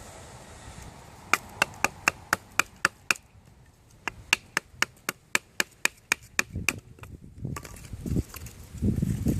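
Bushcraft knife chopping into wood in quick, sharp strokes, about four a second, in two runs with a short pause between. A rustle of handling follows near the end.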